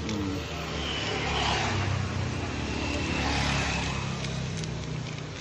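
A motor vehicle engine running with a steady low hum, and road noise that swells and fades.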